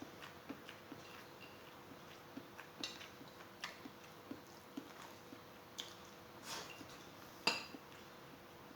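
Cutlery clicking and clinking faintly against a plate during a meal, with one louder ringing clink about seven and a half seconds in.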